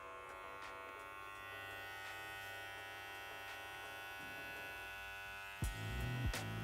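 Wahl Senior hair clipper with a number one (3 mm) guard running steadily as it is worked up the side of the head. About five and a half seconds in it gets louder, with a few short knocks.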